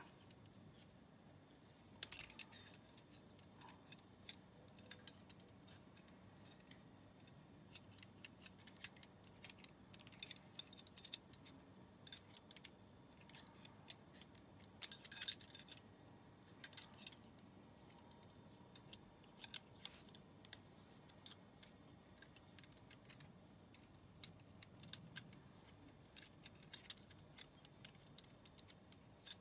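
Metal ring of a Hanayama Cast Box puzzle clinking and scraping against the cast-metal cube as it is worked through the openings: scattered light metallic clicks, with a louder flurry about halfway through.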